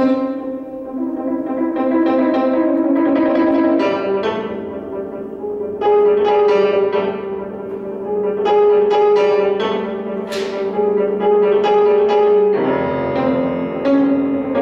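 Grand piano played solo in a contemporary classical piece: sustained, pedalled chords with a long held middle note under shifting notes above, changing to a new chord near the end.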